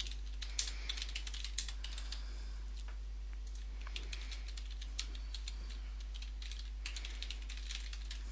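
Typing on a computer keyboard: irregular runs of quick key clicks with short pauses, over a steady low hum.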